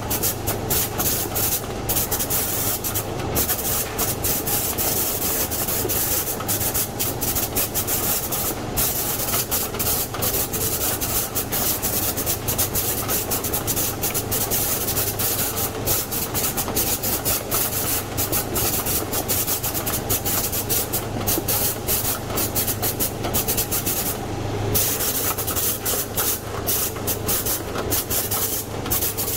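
Apricot sorting machine running: the steady mechanical noise and hiss of its conveyor belt and drives, over a constant low hum.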